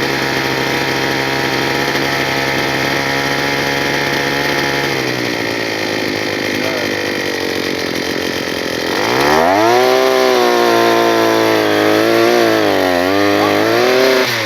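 Gas-powered earth auger's small engine running steadily. About nine seconds in it revs up and holds at high speed, its pitch sagging and recovering a few times near the end.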